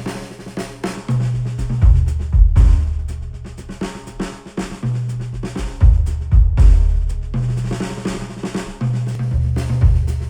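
Instrumental music with a drum kit and a deep bass line, played back through Sennheiser headphones and picked up by microphones. Sharp drum hits fall over bass notes that change every second or two.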